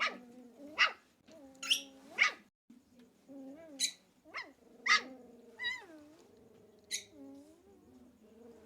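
Dogs squabbling: short, sharp yips and barks about once a second, over a lower whining grumble that bends up and down in pitch.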